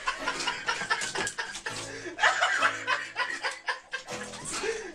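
Laughter in short, choppy chuckles, with a few bits of voice.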